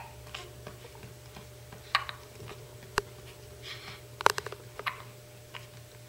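Newborn baby hiccupping: a few short, sharp hiccups a second or so apart, with small clicks between them, over a faint steady hum.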